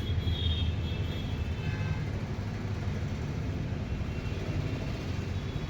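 Steady low rumble of street traffic, with a faint high tone briefly in the first second.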